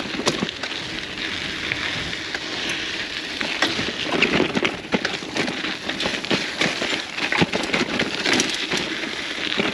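Bicycle rolling fast down a rocky dirt trail: tyres crunching over gravel and rock, with frequent irregular clicks and rattles from the bike over the bumps.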